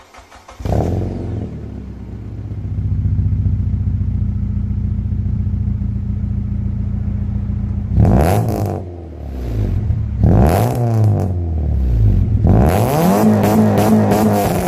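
Nissan Pulsar N16's 1.8-litre four-cylinder engine, breathing through new extractors, a high-flow cat and a 2.5-inch exhaust, starting up and settling into a steady idle. Near the end it is revved three times, the last rev held longest before dropping back to idle.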